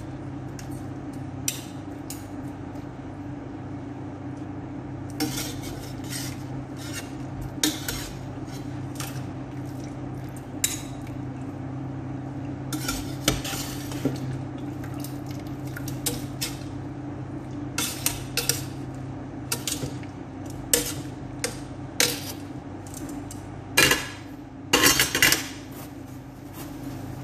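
Metal slotted spoon and tongs clinking and scraping against a metal pot as boiled fish is scooped out, in scattered short clinks that bunch into louder clatters near the end. A steady low hum runs underneath.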